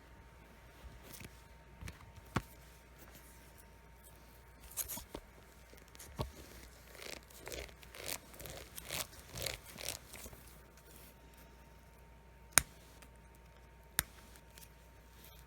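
Packaging being torn open and handled: a run of short tearing and rustling strokes, then a few sharp clicks near the end.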